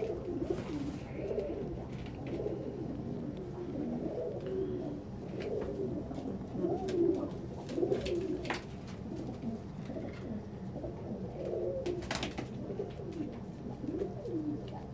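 Domestic pigeons cooing over and over in a loft, with a steady low hum underneath. Two brief sharp noises come about eight and twelve seconds in.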